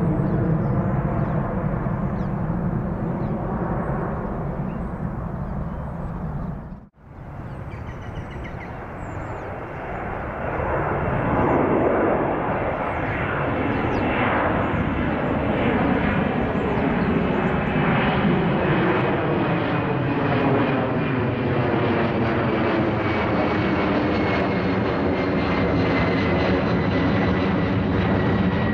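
Jet engines of a departing Airbus A300 freighter climbing away, broken off by a brief drop-out about seven seconds in. Then a Boeing 767-300ER's twin jet engines grow louder as it climbs overhead and hold a steady rumble, with a thin high whine slowly falling in pitch.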